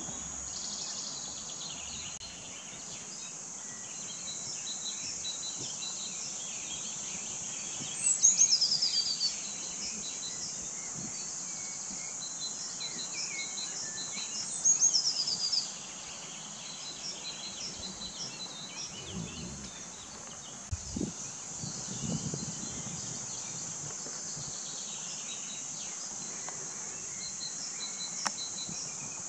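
A steady, shrill chorus of insects stridulating in summer vegetation, with softer bird chirps scattered through it. Twice, about 8 and 15 seconds in, a bird sings a loud run of quick notes falling in pitch.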